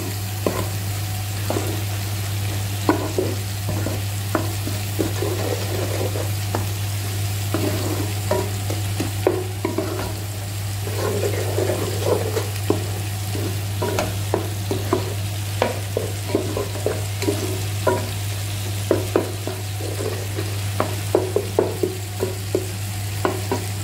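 Wooden spoon stirring and scraping tomato paste, onion and garlic frying in oil in a nonstick pot, with a steady sizzle and many short knocks of the spoon against the pot. A steady low hum runs underneath.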